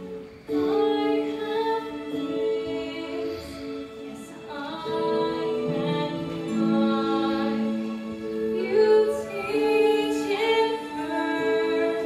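Stage-musical cast singing a slow song together, several voices holding long notes, with women's voices leading.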